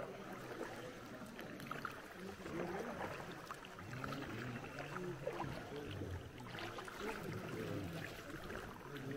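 Sea canoe being paddled, with a few light splashes of the paddle in the water, under faint chatter of people's voices.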